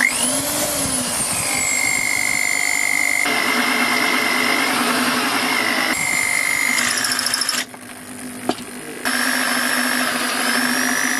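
Electric drill boring a hole through a steel bracket plate: it starts up with a rising whine, then runs steadily with its pitch sagging and recovering as the bit bites. It eases off briefly about two-thirds of the way through, then runs on.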